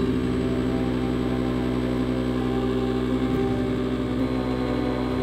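Electric SUP inflation pump switched on and running with a steady hum as it inflates the paddleboard.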